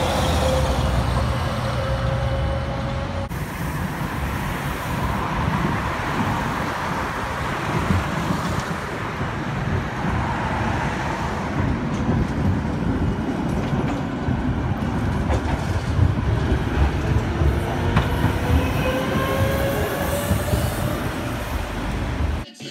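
Electric low-floor trams running along street track: steady rolling noise with a few sharp clacks of wheels over rail joints, and a traction-motor whine rising in pitch near the end as a tram accelerates away. In the first few seconds an articulated city bus passes.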